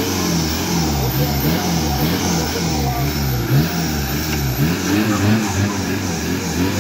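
Off-road vehicle engine revving up and down over and over, about two revs a second, as a vehicle is pulled out of a mud pit on a winch cable.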